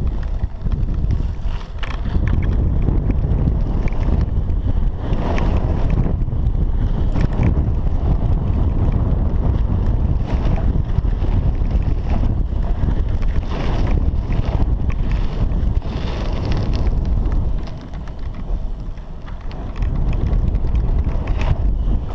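Wind rushing over a helmet-mounted camera's microphone as a BMX bike rides fast around the track, with the rumble of the tyres and scattered knocks over bumps. The noise drops quieter for a couple of seconds about three-quarters of the way through.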